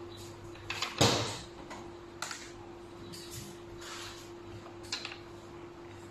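Handling noises from fitting plastic tubing and handpieces onto a hydra facial machine: a sharp knock about a second in, then scattered clicks and rustles, over a steady faint hum.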